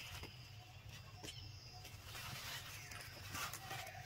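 Faint outdoor ambience with a few high chirping calls and soft clicks, the brightest call about three and a half seconds in.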